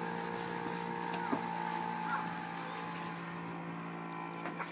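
Small brush-cutter engine driving a radio-controlled model pompong boat, running at a steady high speed as the boat heads away, its level easing slightly near the end. A sharp click about a second in.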